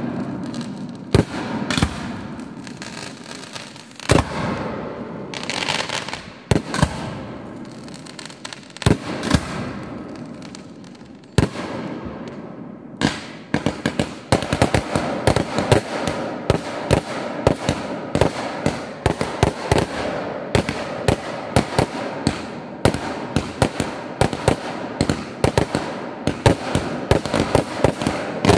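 Fireworks display: loud bangs of aerial bursts a second or more apart, each trailed by a fizzing hiss, then from about halfway through a rapid volley of many bangs a second as several shots go up together.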